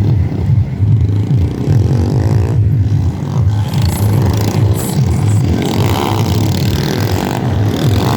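Loud, bass-heavy music played through a competition car sound system, its pounding low end making up most of the sound.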